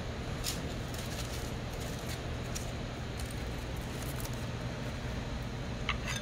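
Aluminium foil crinkling in a few short, sharp rustles, the strongest near the end, as a foil-wrapped package is handled and opened. Under it runs a steady low hum.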